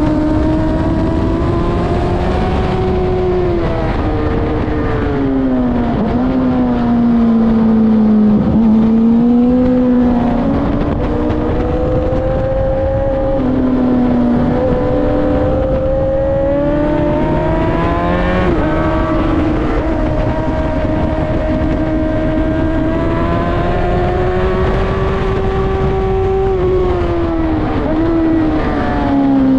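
Track-day motorcycle engine at speed, heard onboard: the engine note climbs and falls over and over, with sudden drops at gear changes, over steady wind rush.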